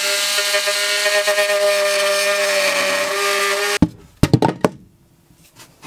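Cordless oscillating multi-tool cutting through a painted wooden wall: a steady, high buzz that stops abruptly a little under four seconds in. A few sharp knocks on the wood follow.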